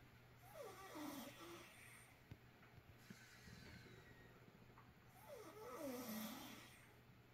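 A sleeping person snoring: two faint, drawn-out snores about five seconds apart, each sliding down in pitch and back up.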